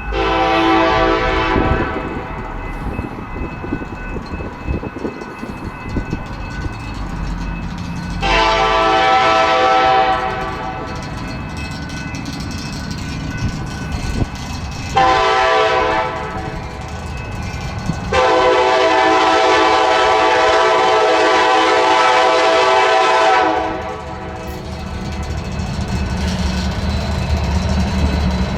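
Diesel locomotive air horn sounding a chord in the grade-crossing pattern of long, long, short, long: the last blast is held about five seconds. A low locomotive rumble runs between the blasts and builds near the end as the train draws closer.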